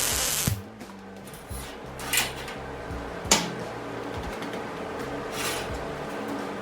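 Shop work sounds: short bursts of hiss and a sharp metallic click, over a steady low hum.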